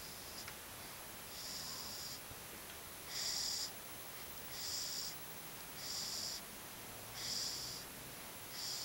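Soft, hissy snoring breaths from a sleeper, about six of them at a quick, even pace of roughly one every one and a half seconds.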